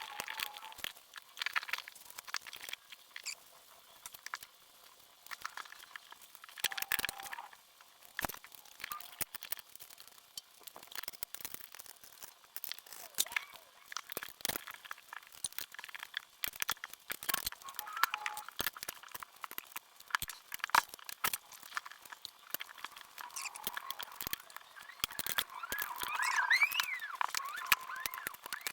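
Tyre levers and a rubber tractor-tyre bead being worked onto a steel rim: scattered clicks, knocks and scrapes, with a brief rubbery squeak near the end.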